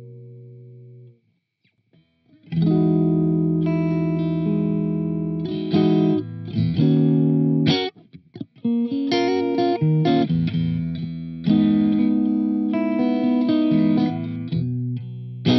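Bacchus Universe Series Strat-style electric guitar played on a clean amp tone: a chord rings and fades, a short pause, then strummed chords and melodic lines. About eight seconds in, after a brief break, the tone changes from the neck pickup to the neck and middle pickups together.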